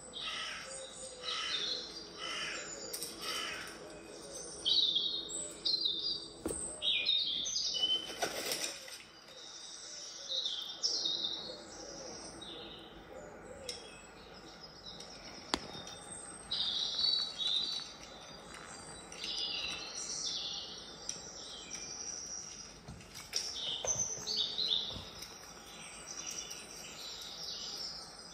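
Recorded birdsong played through an Amazon Echo Show's speaker: many short chirps and trills from several birds throughout, with a lower wavering call underneath in the first half and an occasional brief knock.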